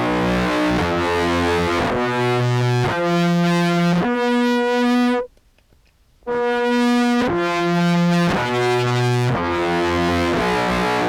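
Sampled contrabass clarinet played through an EHX POG2 pitch shifter set to a detune and a fuzz pedal, giving a buzzy, brass-like tone. Two phrases of held notes step in pitch about once a second, with a break of about a second in the middle.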